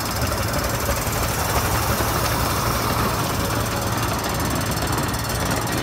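The Little Puffer miniature steam train running: a steady, rapid clattering rumble with a constant low hum underneath.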